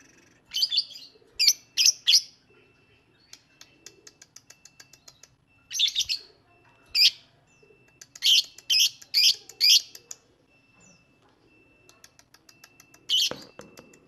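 Fischer's lovebird calling: loud high chirps in quick clusters of three or four, with runs of soft rapid ticking between them.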